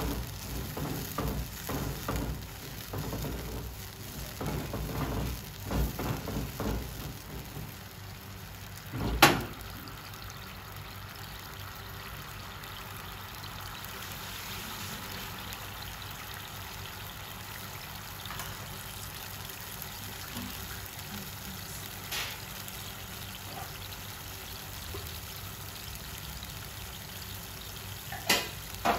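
A silicone spatula stirs a thin shiitake mushroom sauce in a nonstick frying pan, with one sharp knock about nine seconds in. After that the sauce simmers with steady bubbling, and a few light clicks come near the end.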